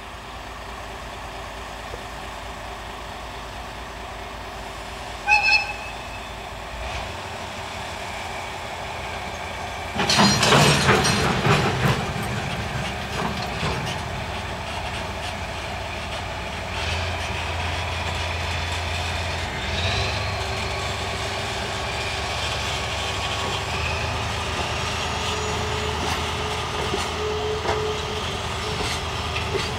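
JNR DE10 diesel-hydraulic shunting locomotive, its V12 diesel running as it works a rake of freight wagons. A short whistle toot comes about five seconds in. About ten seconds in, a loud burst of clanking follows as the wagons take up slack. The engine then runs harder under load.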